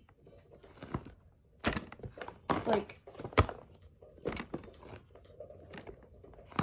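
Scattered knocks, clicks and rustles, a few louder thunks among them, with a single spoken word about halfway through.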